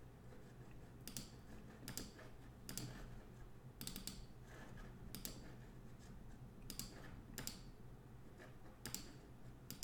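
Faint clicking of a computer mouse, a sharp click roughly every second, some in quick pairs.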